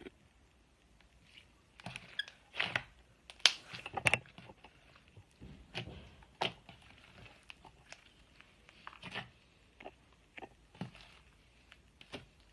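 Slime being squeezed and poked by hand, giving irregular sticky clicks and squelches.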